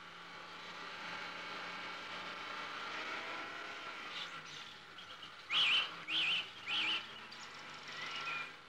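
A car driving by, a steady hum of engine and tyres, with a bird chirping three times in quick warbling calls about two-thirds of the way through, louder than the car.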